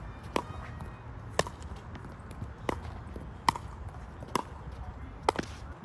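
Pickleball rally: paddles striking the plastic ball, about six sharp pops roughly a second apart.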